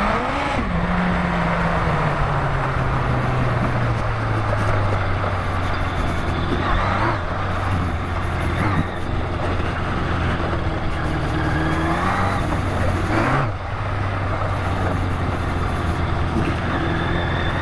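Yamaha FZR1000 inline-four engine running at low revs as the bike rides over a dirt track, the revs rising and falling a few times with the throttle and dropping sharply about thirteen seconds in. Steady wind and road noise runs underneath.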